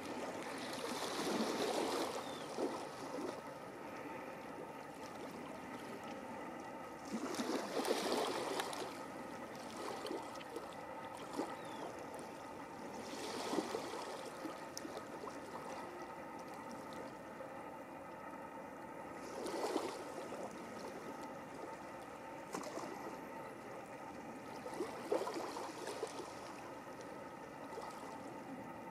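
Small waves washing in on a rocky shore, swelling and fading about every six seconds, over a steady wash of water.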